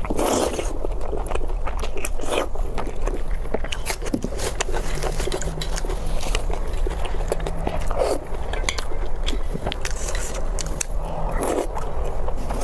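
A person biting and chewing food, with many small wet clicks and some crunches, and a few louder mouth sounds near the start, about eight seconds in and near the end.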